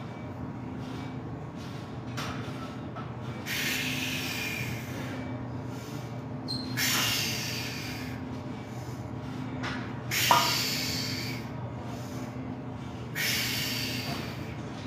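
A weightlifter's forceful hissing breaths, four of them about three seconds apart, as he psychs up under a heavy barbell on the bench press, over a steady low hum.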